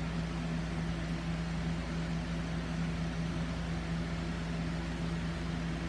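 Box fan running: a steady hum with one strong low tone over an even rush of air.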